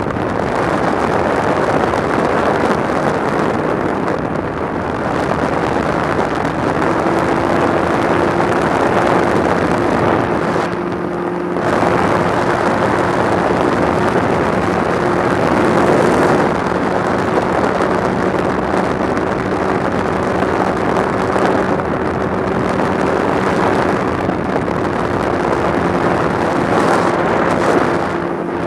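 Open-cockpit microlight aircraft in flight: steady engine and propeller drone under heavy wind rush on the microphone. A steady engine hum stands out more clearly from about seven seconds in, and the noise dips briefly near eleven seconds.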